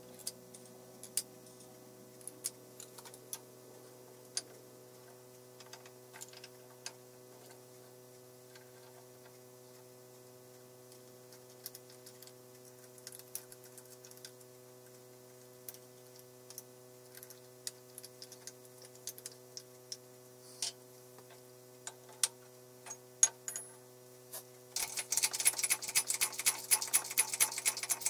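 Scattered small metallic clicks and taps of screws and a screwdriver being worked on a chuck and backplate, over a steady low hum. About three seconds before the end, a fast, louder run of rapid clicking starts.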